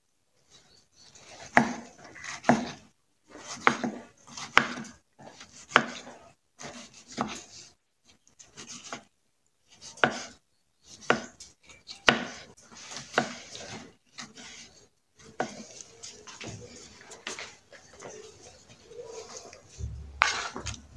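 Chef's knife slicing and dicing a tomato on a wooden cutting board: the blade knocks against the board in runs of a few quick cuts, with short pauses between runs.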